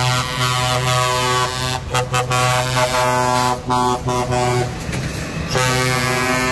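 Trucks' air horns sounding in several long blasts with short breaks between them, as the trucks drive past.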